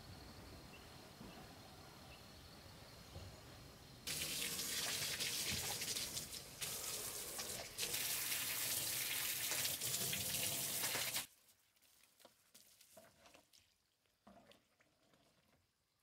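Water jetting from a garden hose: a loud steady hiss that starts abruptly about four seconds in, dips briefly midway, and cuts off suddenly about eleven seconds in. Before it there is only a quiet background, and after it a few faint knocks.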